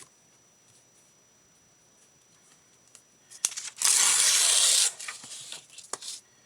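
A sheet of craft paper torn by hand: one quick rip lasting about a second, about halfway through, after a light click of the paper being handled, with a few soft clicks after it.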